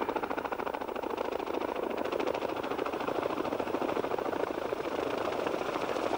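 Tandem-rotor Boeing Vertol 107 (HKP 4) military helicopter flying in low, its rotor blades beating with a rapid, steady chop over the whine of its engines.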